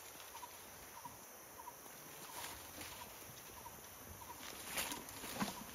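Forest undergrowth rustling and crackling as an Asian elephant feeds on the leafy branches, with a couple of louder snaps near the end. A faint small double chirp repeats steadily in the background every half-second or so.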